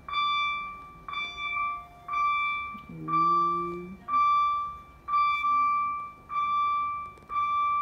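Alaris VP infusion pump sounding its alarm buzzing, a steady pitched beep repeating about once a second: the signal that the infusion is complete.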